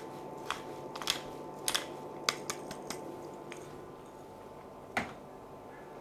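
Hand pepper grinder twisted over a pan, grinding black peppercorns with a run of sharp, irregular clicks and cracks for about three and a half seconds. One more single click comes about five seconds in.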